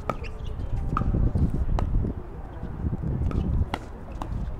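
Pickleball paddles hitting a plastic pickleball back and forth in a doubles rally: about five sharp pops, roughly a second apart, over a low rumble.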